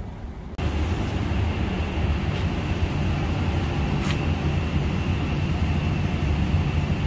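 Steady machine hum and whir of Daikin VRV outdoor air-conditioning units running, heavy in the low end with a faint high whine, starting abruptly just after half a second in. A single short click about four seconds in.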